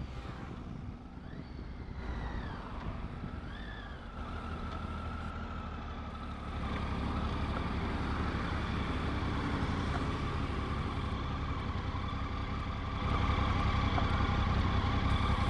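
Motorcycle engine running at low speed and then idling, with a faint steady high whine over it.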